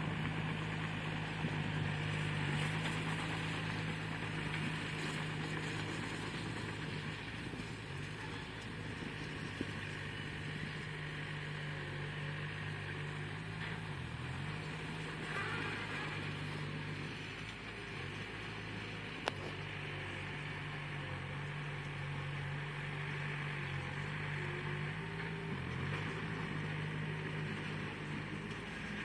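Bulldozer engine running steadily under load as it pushes earth, its pitch sagging briefly three or four times, with one sharp click partway through.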